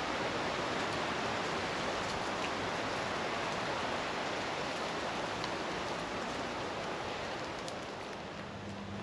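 Steady rushing hiss, like rain or running water, slowly fading near the end.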